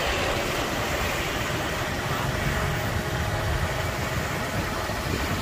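Steady traffic noise from riding a motorbike slowly along a queue of idling buses and cars: engine hum and road noise with no sudden events.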